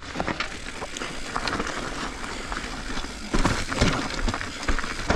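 Mountain bike moving over rough trail ground: irregular clicking and rattling from the bike and tyres, with a few louder knocks about three and a half seconds in.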